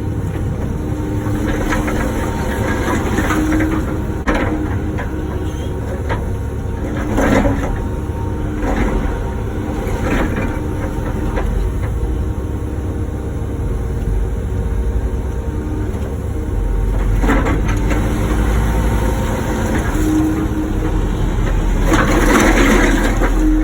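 Wacker Neuson ET145 excavator running steadily under load, with a steady hydraulic whine over the engine drone. Several sharp knocks and scrapes break in as the bucket works out blacktop and concrete; the loudest comes near the end.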